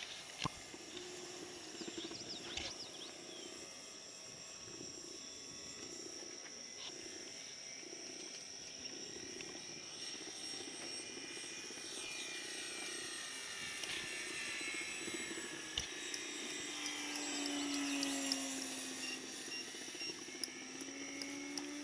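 Electric RC model airplane motor and propeller whining in flight at a distance. Its pitch drifts with throttle, and about three-quarters of the way in it grows louder and its pitch falls as the plane passes.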